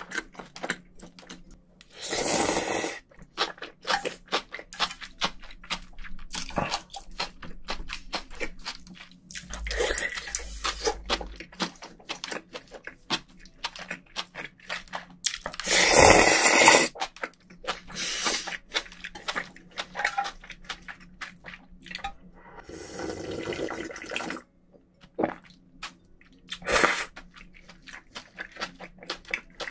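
Close-up eating sounds of Korean cold noodles (naengmyeon): wet chewing and small clicks throughout, broken by several loud slurps of noodles and broth, one of the loudest about two thirds of the way in.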